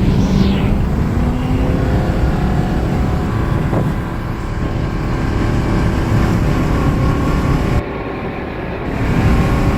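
Ford Crown Victoria Police Interceptor's 4.6-litre V8 running hard at highway speed, heard from inside the cabin with road noise. The engine is misfiring and the transmission has no fluid, so it struggles to shift. About a second near the end, the sound dips briefly before picking up again.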